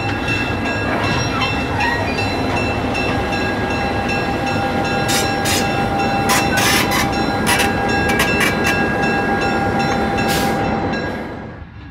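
EMD NW2 switcher's V12 diesel engine running as the locomotive rolls slowly past close by, with a scatter of sharp clicks from the wheels and track about halfway through. The sound drops off suddenly near the end.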